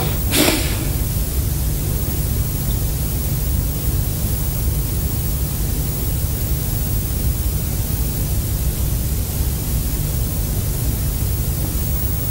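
Steady noise: a constant hiss over a low rumble, with one short rushing burst about half a second in.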